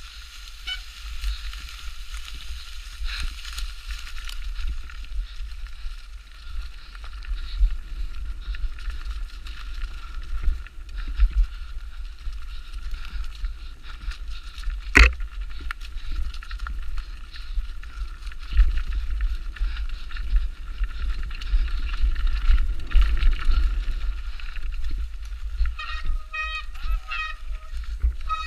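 Specialized Demo 8 downhill mountain bike running down a rough trail: a steady low rumble from tyres and suspension with constant rattling of chain and frame, and one sharp knock about halfway through. Near the end come a few short high-pitched chirps.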